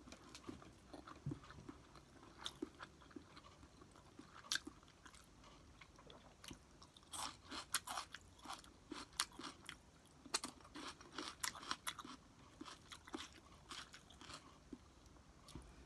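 Close-up chewing of fried garlic rice, with small wet clicks and crunches from the mouth, thickest through the middle.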